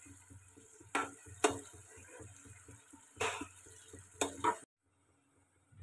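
Spatula stirring and scraping through a simmering sem-bean and potato curry in a nonstick frying pan, in about five short scrapes. The sound cuts off abruptly near the end.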